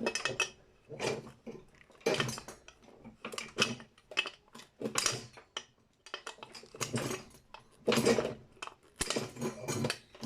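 Irregular metallic clinks and knocks of hand tools and loose metal parts as a brass light fitting is worked apart, coming in short clusters about every second or so.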